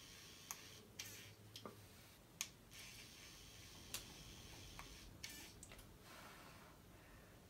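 Near silence with a scattering of faint, irregular clicks and a few soft puffs of breath blowing on freshly extruded 3D-pen plastic to cool it.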